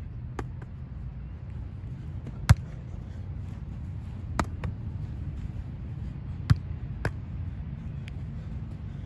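Several sharp smacks of a volleyball being hit by hand and passed off the forearms, a second or two apart, over a steady low rumble.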